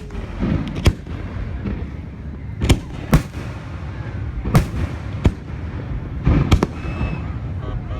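Aerial fireworks bursting: about seven sharp booms at irregular intervals, two of them close together near the end, over a continuous low rumble.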